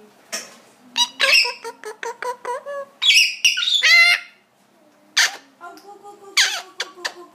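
Female Eclectus parrot calling: several short, sharp squawks, with a burst of warbling chatter about three seconds in.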